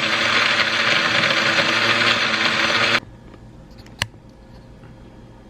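Countertop blender motor running steadily for about three seconds, blending a protein shake, then cutting off suddenly. A single sharp click follows about a second later.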